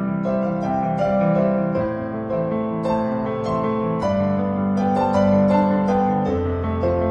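Background piano music, a gentle keyboard melody with many short notes over held bass notes.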